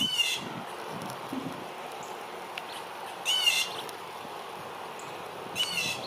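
Blue jay giving three short, harsh calls, about two and a half seconds apart, calling for its mate.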